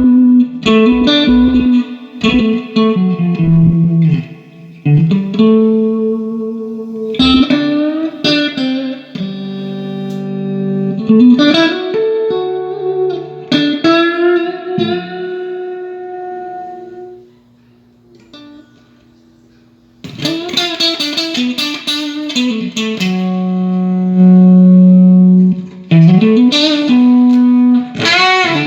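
Electric guitar played through a Fender Pro Reverb Silverface tube amp being sound-tested after a holed speaker cone was repaired: picked notes and ringing chords, stopping for about two seconds a little past the middle, then fuller playing with some bent notes near the end.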